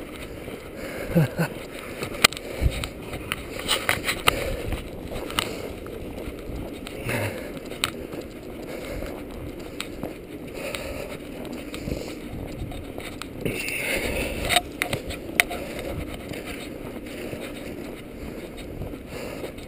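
Footsteps trudging through deep fresh snow, with irregular crunches and scuffs and a steady rustle of movement.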